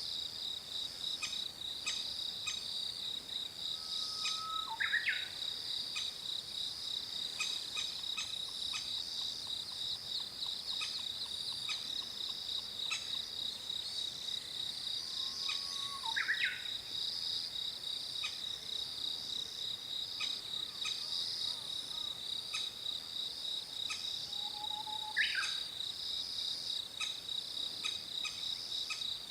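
Adult crested kingfisher calling three times, about ten seconds apart, each a short whistle and a quick sharp sweep up and down, as it calls a nearly fledged chick to the nest-hole entrance. A steady, high, pulsing insect trill runs underneath.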